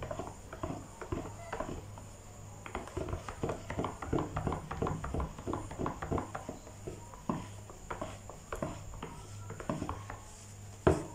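A plastic spatula stirring soap batter in a plastic measuring jug, knocking and scraping against the jug's sides in quick, irregular taps.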